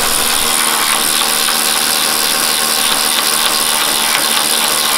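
Pneumatic air ratchet running steadily with a loud hiss, driving a spoiler mounting nut on a Ford Mustang's trunk lid.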